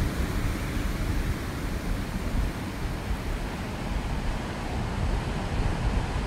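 White-water river rapids and a waterfall rushing steadily, a dense, even noise heaviest in the low end.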